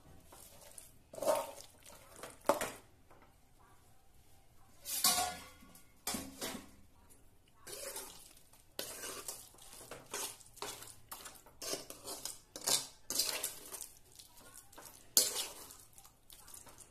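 A steel glass pressing, then a steel spoon mashing and stirring, scraping and clinking irregularly against a kadhai as boiled aubergine and potato are mashed into chokha.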